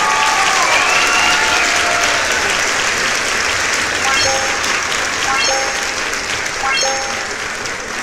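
Crowd applause with some cheering voices at the start, played under an outro, with three short electronic blips about four, five and a half and seven seconds in.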